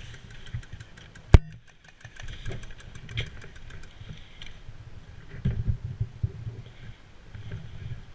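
A single sharp crack from an airsoft gun shot about a second and a half in, over an uneven low rumble of movement and handling noise.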